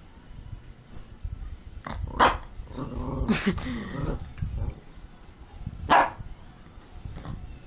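A dog barking and growling: a sharp bark about two seconds in, a drawn-out growling bark a second later, and another sharp bark near six seconds. The barking is aimed at a fake dog that it is afraid of.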